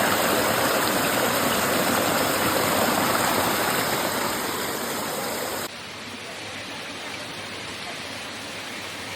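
Steady rush of running water from a waterfall-fed mountain stream, loud and close, dropping abruptly to a softer, duller rush a little past halfway.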